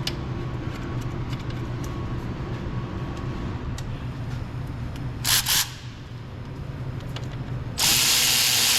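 Power tool running the 14 mm caliper bolts in on a Subaru Forester's front brake: a short burst about five seconds in, then a longer run of nearly two seconds near the end, over a steady low hum.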